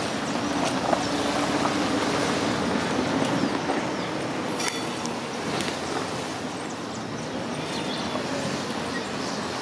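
Freight train's wagons rolling along the track, a steady rumble that slowly fades as the train moves away.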